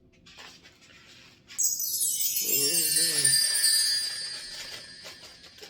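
A bright jingling, bell-like shimmer that starts suddenly about a second and a half in, slides down in pitch and fades away over about four seconds.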